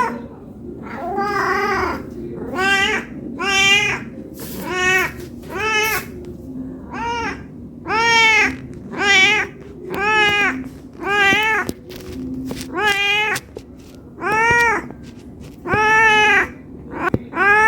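Domestic cat meowing over and over, about one meow a second, each call rising and then falling in pitch: begging for food out of hunger.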